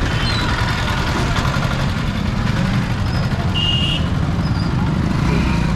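Busy city street traffic: engines running in a dense, steady rumble, with a short high beep about two-thirds of the way through.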